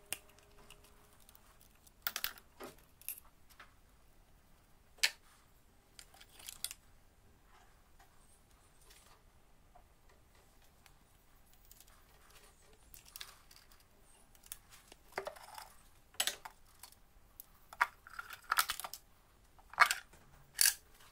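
Irregular light clicks and knocks of hands and tools handling parts on a car engine, a few scattered early on and coming more often in the last few seconds.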